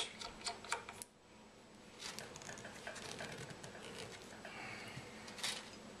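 Faint clicks, taps and rustling as hard plastic and acrylic parts are handled and pulled apart, with a sharper click about five and a half seconds in.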